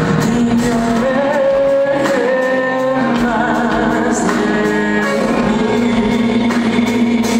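Live pop ballad: a male singer sings long, wavering held notes into a handheld microphone over a band with piano, heard through the concert hall's sound system.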